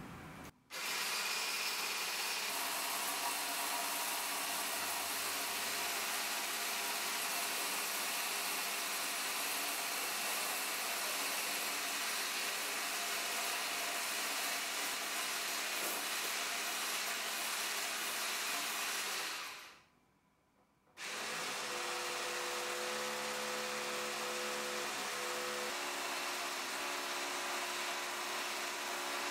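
Electric hand mixer with a balloon whisk running steadily, whirring as it whips egg white into foam in a ceramic bowl. It stops for a moment about two-thirds of the way in, then starts again with a steadier pitched whine while whisking the egg yolk.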